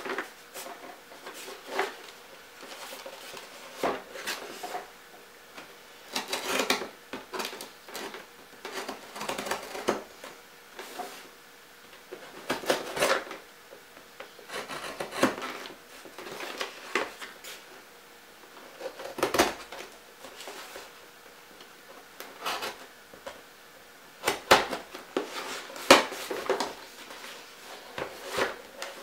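A cardboard shipping box being handled and slit open with a craft knife: the blade scrapes through packing tape, and the cardboard rubs and knocks against a tabletop in irregular bursts, with a few sharper knocks. A faint steady hum runs underneath.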